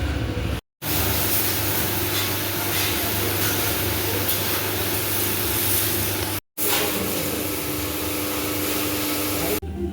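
Steady hiss of a high-pressure spray jet with a motor hum underneath, typical of a bike-wash or air-blow gun at a workshop; it cuts off abruptly about half a second in and again near six and a half seconds, then resumes.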